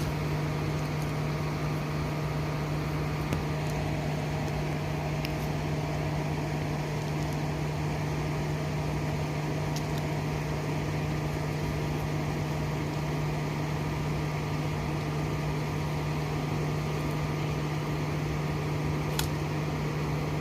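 A steady low mechanical hum that stays unchanged throughout, with a few faint clicks.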